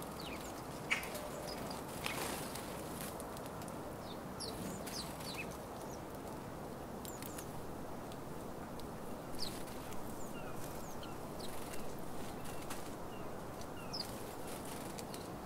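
A flock of house sparrows chirping at a seed feeder: many short, scattered chirps with a few sharp clicks. The chirps sit over a steady low background rumble.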